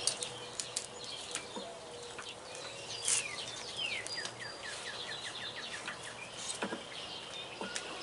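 A songbird singing: a couple of falling whistled notes about three seconds in, then a quick run of short falling notes, about six a second. A few light knocks and taps sound as well, two of them near the end.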